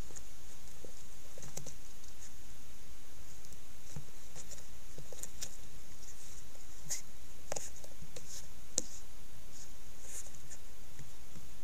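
An eastern quoll tearing and chewing at a carcass: scattered soft clicks and crackles, sharper and more frequent in the second half, over a steady hiss.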